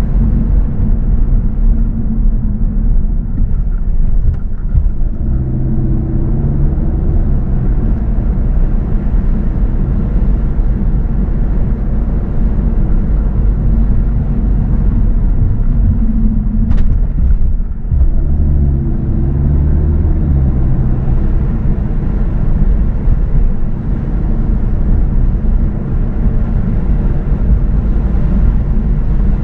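A car driving, with a steady, loud low rumble of road and wind noise. A low hum swells twice, and there is one short sharp knock about halfway through.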